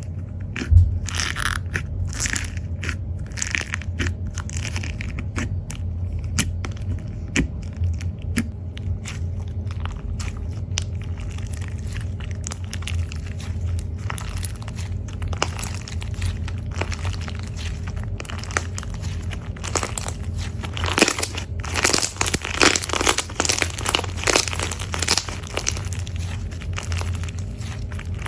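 Slime being squeezed and pressed by hand, giving a continuous run of crackles and crunchy pops that grows denser and louder in the last third, over a steady low hum.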